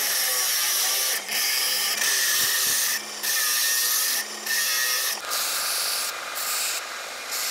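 Angle grinder with a thin cut-off wheel cutting through a hardened steel saw blade: a steady grinding hiss that dips briefly a few times. About five seconds in it gives way to a belt grinder grinding the edge of the steel piece.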